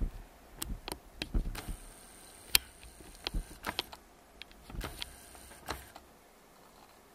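Plastic food container being handled and shifted on a wooden board: an irregular run of clicks, taps and light knocks, the sharpest about two and a half seconds in, dying away about a second before the end.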